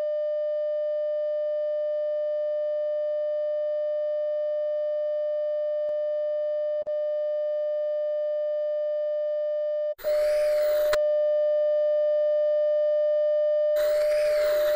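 Steady electronic test-tone beep held on one pitch, cutting out briefly twice, with short bursts of hissing TV static breaking in about ten seconds in and again near the end.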